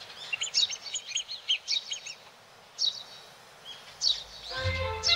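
Small birds chirping and twittering in quick, high, rising-and-falling calls. About four and a half seconds in, orchestral music with strings comes in under them.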